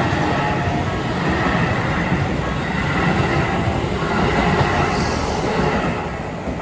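Keisei electric train running through a level crossing, a steady rush of wheels on rail with some wheel squeal. The crossing's warning bell rings faintly underneath.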